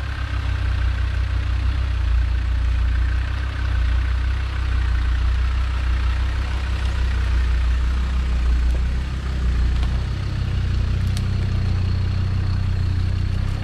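Land Rover Discovery engine running at low, steady revs as the 4x4 crawls slowly along a steep, sloping off-road track, a constant low rumble.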